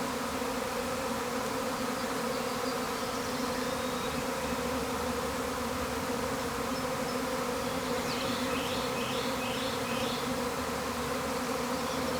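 A swarm of honeybees in the air around the hive: a loud, steady buzz of countless wings, the hum that beekeepers take as the sign of a colony swarming.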